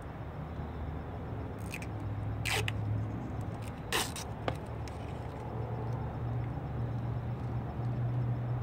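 Backing paper being peeled and handled as a vinyl wheel skin is applied: a few short rips and rustles in the first half, over a steady low hum.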